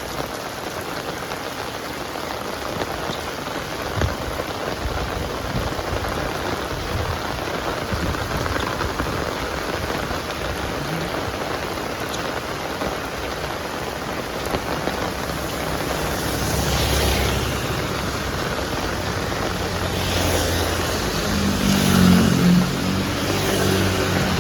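Heavy rain falling steadily, with a single sharp tap about four seconds in. From about two-thirds of the way through, wind gusts in with low rumbling swells, loudest near the end.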